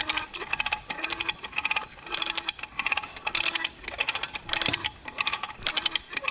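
Bursts of rapid metallic clicking and rattling with a ringing metal tone, coming in clusters about once a second, as a stuck magnet-fishing magnet is worked free from a heavy submerged object.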